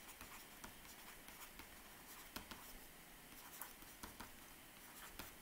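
Faint, irregular taps and light scratches of a stylus writing on a tablet screen, over near silence.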